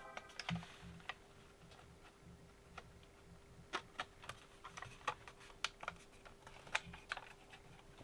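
Faint, irregular clicks and taps of plastic as the Radiomaster Zorro transmitter's plastic case is handled and its halves are pressed together, over a faint steady hum.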